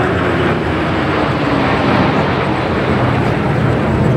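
Loud, steady engine rumble of heavy parade machinery, with a faint tone that slowly falls in pitch.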